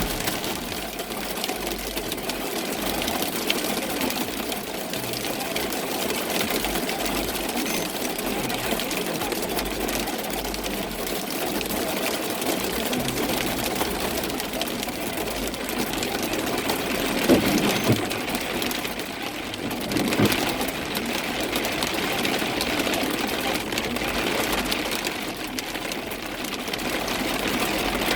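Steady rain falling, a dense even hiss, with two louder knocks about two-thirds of the way through.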